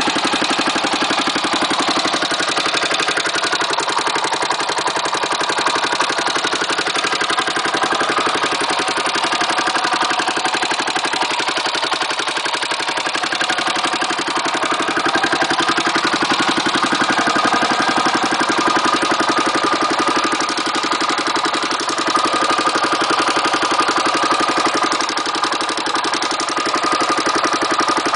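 Honda XR650R's single-cylinder four-stroke engine running steadily at idle with valve noise, the sign of a manual decompressor that has been adjusted wrong, too tight or too loose.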